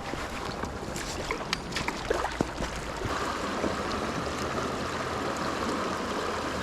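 Stream water rushing steadily, with a few sharp clicks in the first two seconds.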